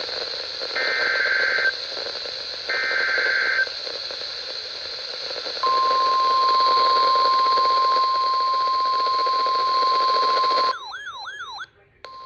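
NOAA Weather Radio Emergency Alert System signal over radio static. It begins with the last two SAME header data squawks, each about a second long, and a few seconds later the steady 1050 Hz weather-radio warning alarm tone comes in. Near the end the tone breaks off for about a second of quick warbling sweeps and a brief dropout, then the alarm tone resumes.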